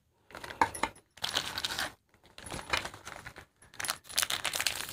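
Plastic biscuit packet crinkling and crackling as it is handled in the hands, in short irregular spells with brief silent gaps and a few sharp clicks.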